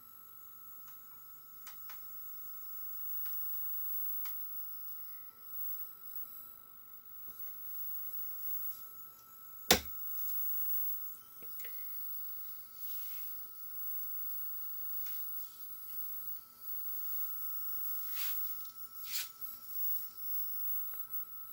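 Quiet bench work on a circuit board: a steady faint electrical whine and hum, with one sharp click about halfway through and two softer clicks near the end.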